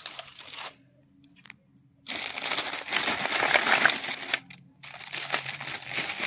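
Clear plastic wrapping crinkling as it is handled around a boxed lipstick set: a short spell at the start, a quiet second or so, then loud continuous crinkling from about two seconds in, with a brief pause near the end.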